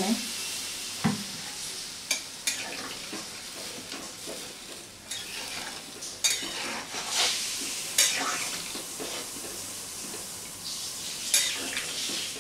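Metal spatula stirring soybean chunks and potato pieces in a pan of watery curry, with irregular scrapes and clinks against the pan. Under them runs a steady hiss from the hot cooking liquid.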